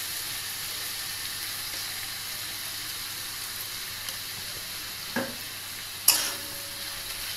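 Flat beans, potatoes and spice paste sizzling in oil in a kadai, a steady frying hiss as the masala fries down. A metal spatula clinks sharply against the pan about a second before the end, with a brief ring.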